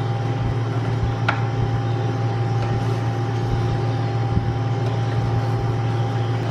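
A steady low mechanical hum with a faint constant tone above it, from a motor or appliance running. About a second in there is a single sharp clink.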